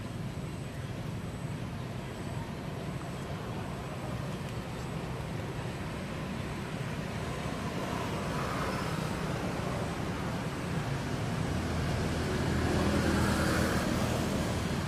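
Steady low rumble of road traffic, growing louder in the last few seconds.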